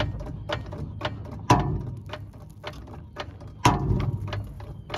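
Mechanical clicking, about two sharp clicks a second, with two heavier knocks among them.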